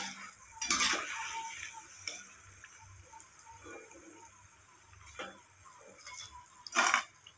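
Steel slotted spoon clinking against the pan and crisp fried diamond-cut chips clattering as they are lifted out of hot oil, in a few sharp rattles about a second in, around two-thirds through and near the end. The oil sizzles faintly in between, its bubbling died down as the chips finish frying.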